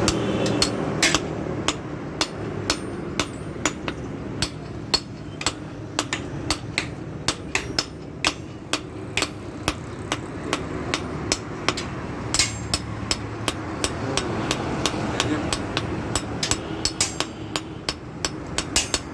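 Hammer striking an axe head, a long run of sharp blows about two a second, as the axe blade is hammered out in sharpening.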